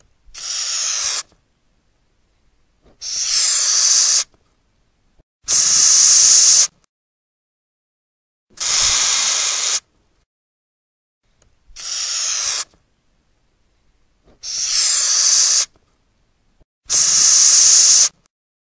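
Madagascar hissing cockroach hissing by forcing air out through its breathing pores: seven hisses in a row, each about a second long, with silent pauses of one to two seconds between them.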